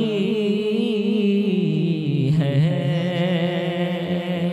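A male voice singing an Urdu naat solo into a microphone, drawing out long wavering melismatic notes at the end of a line, with a short break about two seconds in before the next held note.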